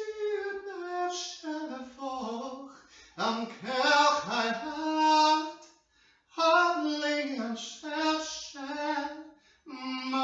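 A single voice singing unaccompanied, in held, gliding phrases broken by short pauses about three, six and ten seconds in.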